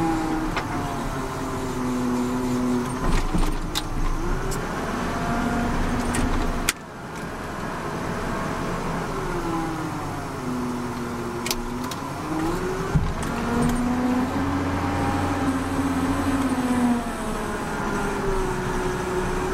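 Volvo BM L70 wheel loader's six-cylinder Cummins diesel, heard from inside the cab, revving up and falling back again and again as the loader works. There are a few sharp knocks and rattles.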